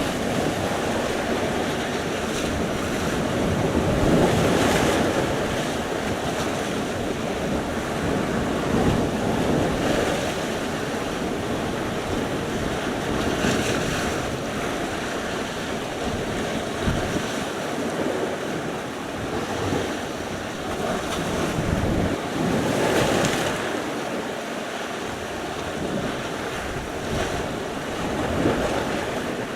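Sea surf: waves washing in and breaking on the shore as a steady rushing noise, swelling as a larger wave breaks about every nine or ten seconds.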